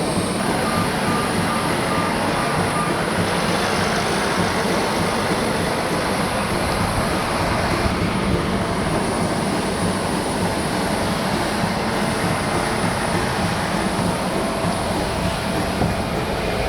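Steady running noise of a large vehicle in motion, even and unbroken throughout, with a quick run of short beeps in the first few seconds.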